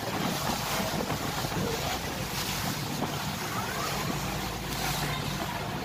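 Wind buffeting the microphone on the deck of a moving cruise ferry, over the steady drone of the ferry's engine and the rush of water along the hull.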